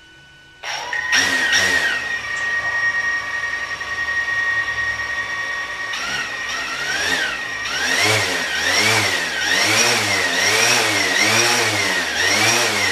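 DJI Phantom 4 Pro quadcopter's four motors and propellers starting up suddenly and spinning at idle, with a steady whine. From about six seconds in, the pitch rises and falls over and over, about once every 0.7 seconds.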